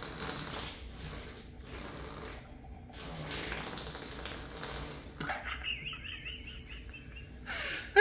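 Homemade fart-noise toy, a drinking straw blown into a red plastic cup, giving breathy, sputtering fart-like noises. In the last few seconds it turns to a high, wavering squeak.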